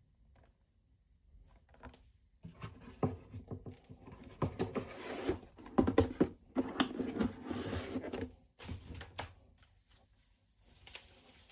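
Handling noise: a run of clicks, taps and rustling, as of small objects being picked up and moved about. It starts about two seconds in, is busiest in the middle, and stops about nine and a half seconds in, with a fainter rustle near the end.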